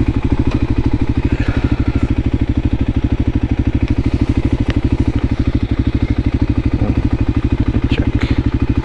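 Voge 300 Rally's single-cylinder engine running steadily, a rapid, even low pulse that does not rise or fall.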